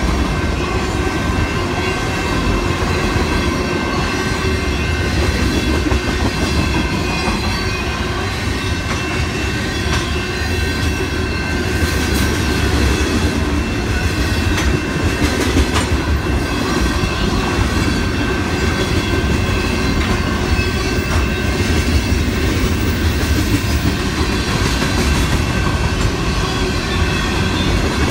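Freight train of tank cars, covered hoppers and boxcars rolling past close by: a steady, loud rumble of steel wheels on rail, with thin, steady high tones over it and a few faint clacks.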